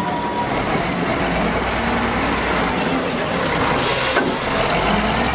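Steady outdoor noise of road traffic and market bustle, with a brief hiss about four seconds in.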